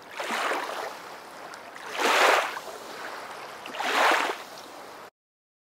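Lagoon waves washing against a stone quay and moored gondolas, three surges about two seconds apart. The sound cuts off abruptly about five seconds in.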